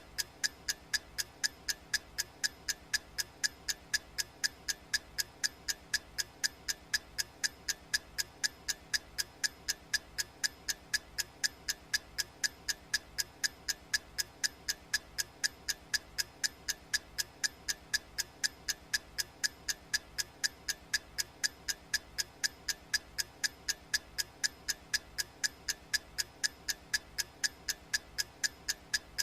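Clock ticking sound effect: sharp, evenly spaced ticks, about two a second, each with a brief bright ring.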